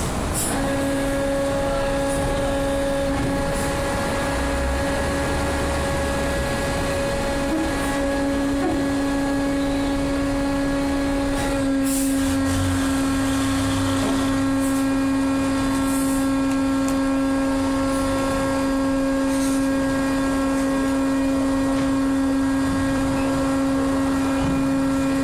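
Diesel trucks driving aboard a ferry over its loading ramp, with a steady pitched machine drone from the ferry that starts just after the beginning, deeper engine swells, and a few short clanks as wheels cross the ramp.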